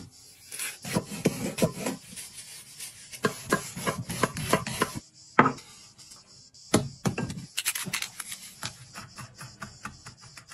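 Chef's knife chopping onion and then mincing garlic on a wooden cutting board: a run of sharp knife taps against the board, coming quicker and closer together in the last few seconds.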